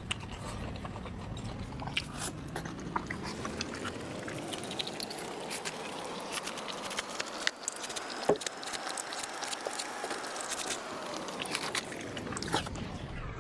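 Close-miked eating: a person biting and chewing, with many sharp, crunchy clicks.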